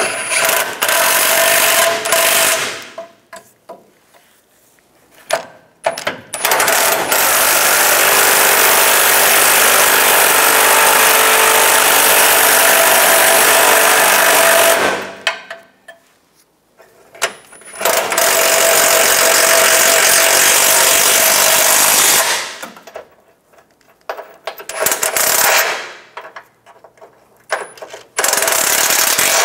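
Cordless impact wrench hammering bolts tight in several bursts, the longest lasting about eight seconds, with short pauses between.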